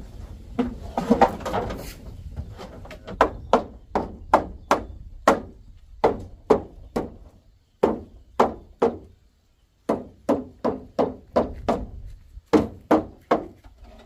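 Quick runs of sharp knocks on the corrugated roof sheeting of a pig barn under repair, about three a second, each with a short ringing tail. The runs are broken by brief pauses about eight, ten and twelve seconds in.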